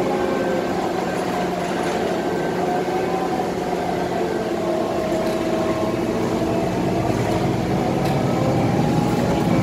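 Cabin sound of a Scania K320 articulated city bus under way: a steady engine and drivetrain drone with a whine that drifts slightly in pitch, over road noise.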